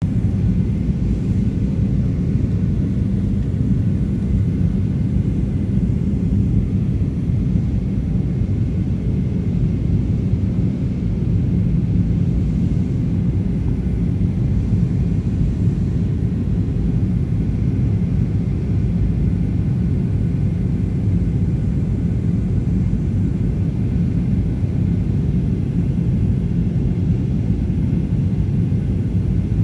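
Steady low drone of a passenger jet in flight, engine and airflow noise heard inside the cabin, with a faint constant hum in it.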